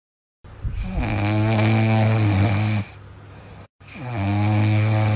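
Dog snoring loudly in its sleep: two long, droning snores of a couple of seconds each, the second starting near the end.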